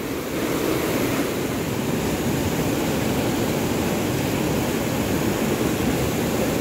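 Fast mountain river rushing over rocks and rapids: a steady, full roar of water.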